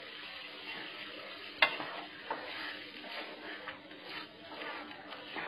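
Wooden spatula stirring thick mixed dal in a nonstick frying pan over a low sizzle from the simmering dal. A few light knocks of the spatula on the pan come through, the sharpest about a second and a half in.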